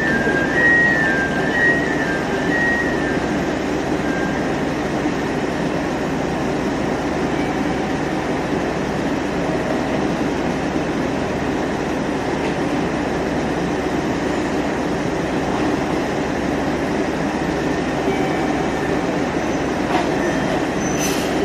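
Steady diesel rumble of JR Shikoku railcars at a platform: one standing idle while a 1500-series diesel railcar rolls slowly in alongside, with a brief high wheel squeal in the first few seconds.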